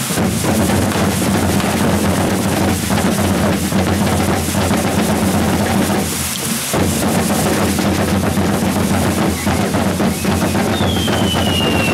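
Drumming music with rolling drums, dense and unbroken, over a steady high hiss. Near the end a high whistle starts, sliding down in pitch.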